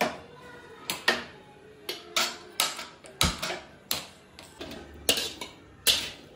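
Metal spatula clinking and scraping against a kadhai while sabzi is stirred on a gas stove: a string of sharp, irregular clinks about every half second. A click as the gas burner knob is turned right at the start.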